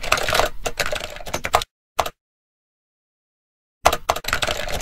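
Rapid typing on a computer keyboard: a dense run of keystrokes that stops about a second and a half in, then a single click, then a gap of nearly two seconds. Another quick burst of typing starts near the end.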